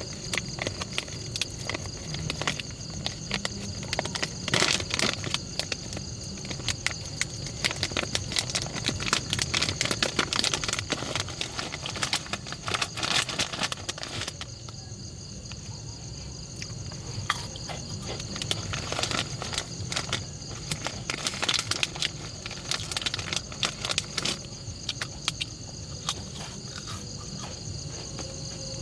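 Insects chirping steadily in a high, continuous drone, with frequent crackling clicks scattered throughout.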